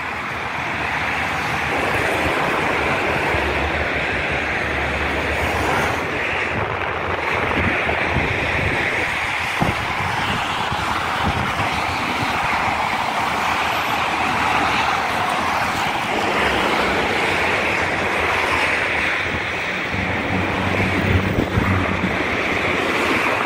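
Road traffic noise: a steady hiss of cars passing on the road, with wind buffeting the microphone in uneven low gusts.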